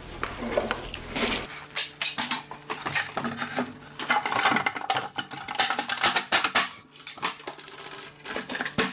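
Irregular clattering knocks and scrapes of a hollow wooden faux box beam being handled on a metal scaffold and pushed up into place against the ceiling framing.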